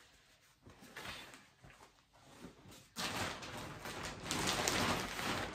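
Packaging of a quilt being handled: faint rustling at first, then from about three seconds in a louder, crackly rustle.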